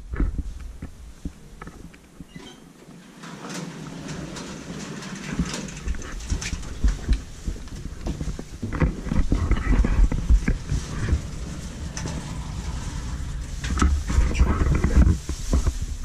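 Small traction elevator arriving and its automatic sliding doors opening, mixed with irregular thumps, clicks and rustle as someone steps into the cab with the camera.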